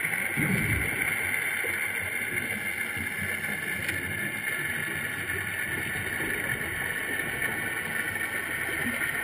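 Underwater ambience picked up through a GoPro's sealed housing: a steady hiss with low rumbling, swelling briefly about half a second in, and a faint click near four seconds in.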